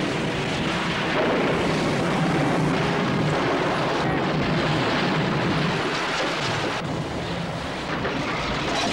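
Storm at sea: steady howling wind and crashing waves against a sailing ship, a dense wash of noise with no speech.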